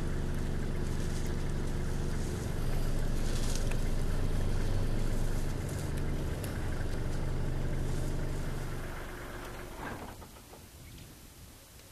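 A vehicle engine idling steadily, with faint clicks over it; the engine sound fades away about nine to ten seconds in.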